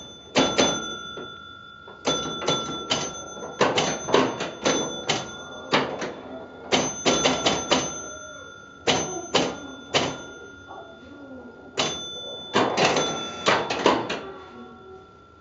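1966 Gottlieb Cross Town electromechanical pinball machine in play: repeated bursts of rapid clicking and clacking from its relays, score reels and stepping units. After several of the bursts, its scoring bells ring on and fade away.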